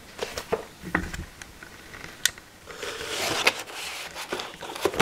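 Paper sheets and cardboard board-game pieces being handled in an open game box: scattered light taps and clicks, a sharper click a little past two seconds, and a rustle of paper around three seconds in.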